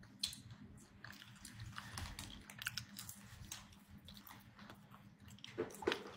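Faint chewing close to a phone microphone: scattered soft mouth clicks and smacks, with a couple of louder ones near the end.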